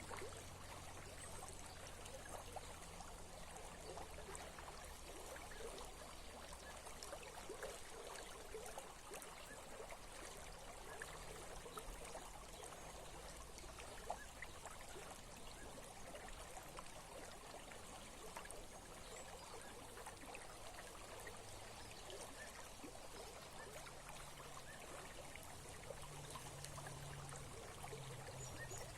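Small stream trickling and babbling with a steady flow.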